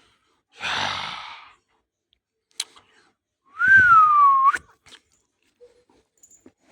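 A person whistling once, a single short whistle that rises briefly, slides down and flicks sharply up at the end. It comes a few seconds after a breathy hissing rush of air.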